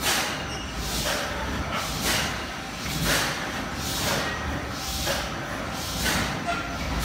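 Disco turntable amusement ride running empty, its rotating cabin giving a low rumble with a whooshing hiss that swells about once a second.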